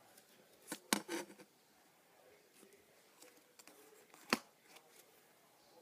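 Hands handling and creasing a small folded strip of wallet-making material: a short cluster of rustles and clicks about a second in, then one sharp click a little after four seconds, with faint handling in between.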